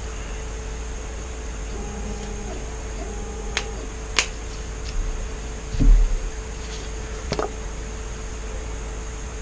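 Steady background hum with a few light clicks and taps, and a dull thump about six seconds in, the loudest sound.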